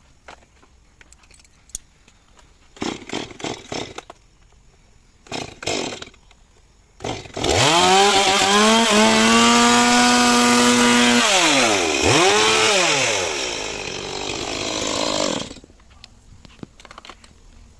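Stihl chainsaw being pull-started: a few short cranking pulls before the engine catches. It then runs at high revs, drops and picks up twice, and shuts off abruptly.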